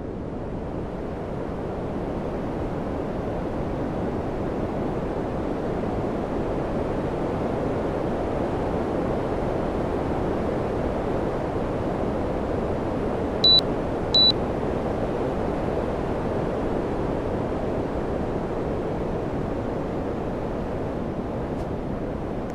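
Air conditioner running, with a steady hiss of blown air that builds slightly over the first few seconds. Two short, high electronic beeps come about halfway through.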